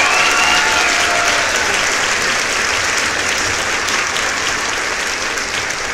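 A crowd applauding, steady and loud. A few held musical tones die away in the first second or so.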